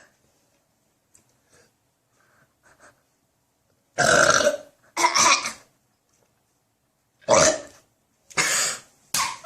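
A girl burping loudly five times in quick succession, starting about four seconds in; the first two burps are the longest.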